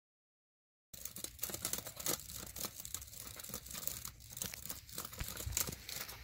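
Laptop keyboard being typed on fast: a dense, irregular run of key clicks starting about a second in.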